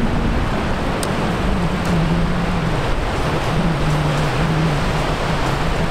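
Steady rush of surf and wind at the water's edge of a beach, with a low droning hum underneath that wavers slowly in pitch.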